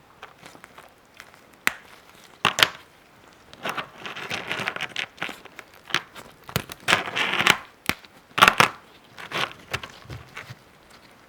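A frozen ice pop-it being pressed and broken: sharp cracks and crunchy crackling of ice in irregular bursts, with a few longer crackling stretches.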